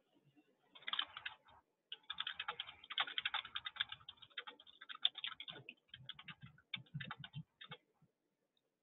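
Typing on a computer keyboard: a short burst of keystrokes about a second in, then a longer run of rapid keystrokes that stops near the end.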